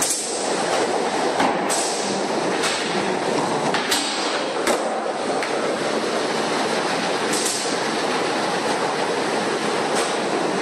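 Skateboard wheels rolling steadily across a smooth skatepark floor, with several sharp clacks of the board scattered through.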